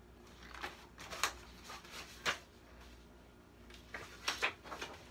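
Pages of a large picture book being turned and handled: a few short paper rustles and flaps, with a quick cluster of them near the end.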